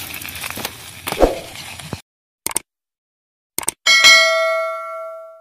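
Subscribe-button animation sound effect: two short clicks, then a single bright bell ding that rings on and fades away. Before it, for about two seconds, there is outdoor noise with one thump, which cuts off abruptly.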